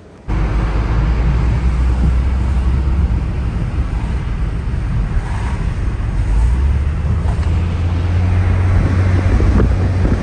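A car driving at speed on an expressway, heard from inside: a steady low engine drone with road and wind noise. The drone starts abruptly just after the beginning, and its pitch rises slightly about two-thirds of the way through.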